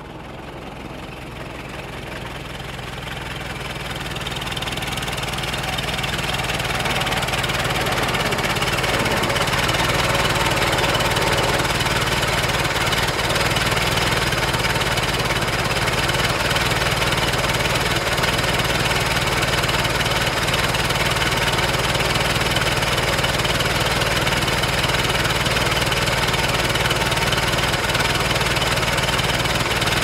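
Vintage 1930s car engine running steadily at idle, growing louder over the first several seconds and then holding even.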